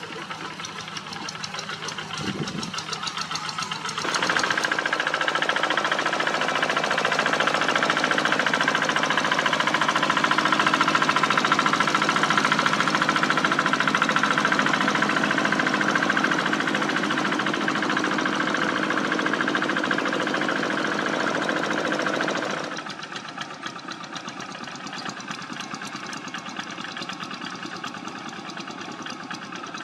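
Walk-behind tractor's single-cylinder diesel engine running under load with a rapid knocking beat. It is much louder through a long middle stretch that starts and ends abruptly.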